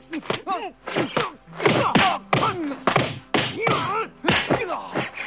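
Film-fight punch and kick sound effects landing in quick succession, about two a second, with the fighters' grunts and short yells between the blows.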